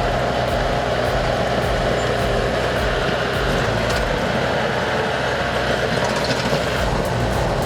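Heavy earthmoving machine's diesel engine running steadily under work, with light mechanical clicks and rattles.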